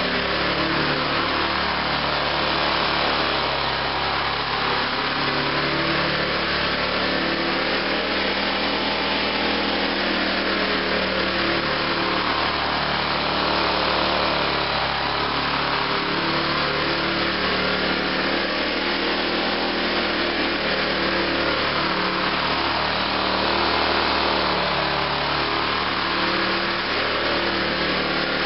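Riding lawn tractor's small engine running steadily as it drives back and forth, louder as it passes close about halfway through and again near the end.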